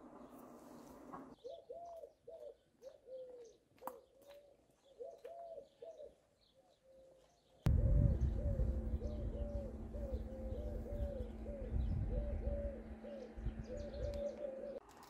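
A dove cooing over and over in short arched calls, with faint chirps of small birds higher up. About halfway in, a louder low rumbling noise and a steady low hum come in, and the cooing carries on over them.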